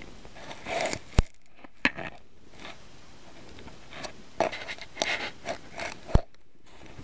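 Footsteps crunching and scraping in deep snow, in uneven bursts, with three sharp clicks: about a second in, near two seconds, and near the end.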